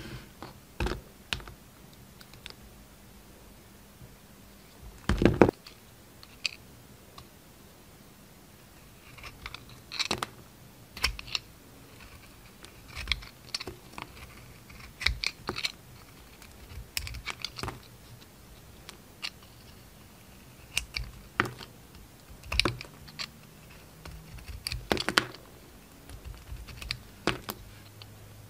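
Bars of soap being cut and shaved with a snap-off utility knife blade: short, crisp crackling cuts coming irregularly a second or a few seconds apart, the loudest about five seconds in. Later strokes shave the glitter coating off a soap bar.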